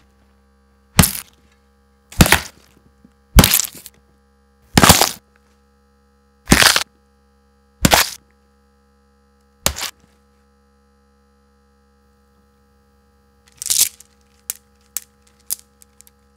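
A series of short, sharp cracking hits, seven of them about a second and a half apart, then after a pause one longer hit and a quick run of small light clicks near the end. A steady electrical hum lies underneath.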